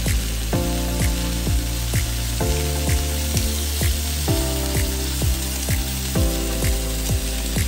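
Background music with a steady beat about twice a second and a deep bass line, over a steady sizzle of chicken, onion and tomato frying in a wok.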